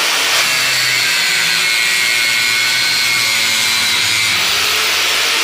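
Angle grinder with a thin cutting disc slicing through an acrylic sheet: a loud, steady grinding hiss with a faint high whine from the disc and motor.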